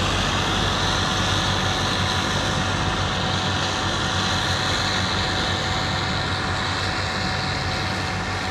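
Self-propelled forage harvester chopping and blowing silage into a truck, a steady machine drone with a thin whine, easing slightly near the end as it pulls away.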